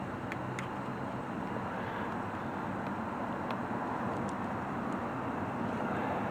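Steady background hum and hiss with a few faint, light clicks, as of small tool or clip handling.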